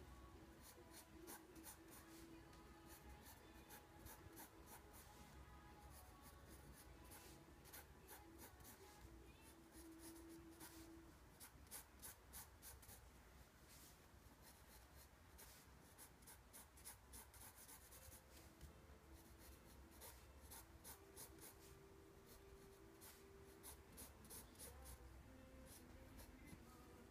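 Faint pencil scratching on sketchbook paper: many short, quick strokes as feather lines are drawn.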